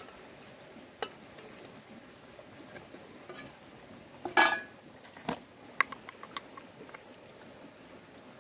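Scattered light clicks and knocks from handling an aluminium cooking pot, a plastic spice jar and a small plastic spoon while seasoning fish: a single click about a second in, the loudest scrape-like rattle about four seconds in, then a run of small quick taps.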